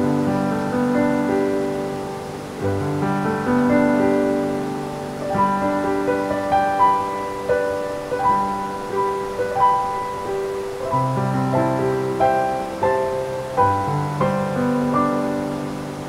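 Background piano music, slow and gentle, with sustained chords under a melody line of single notes.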